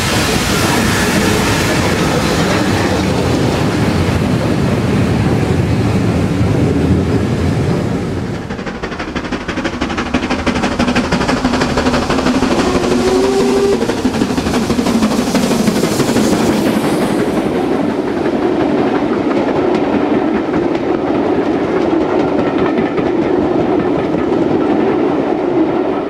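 Steam locomotives on the line: first steam and hiss from LMS Class 5 4-6-0s at a platform, then, after a change about eight seconds in, a steam-hauled passenger train running past with its wheels clattering rhythmically over the rail joints.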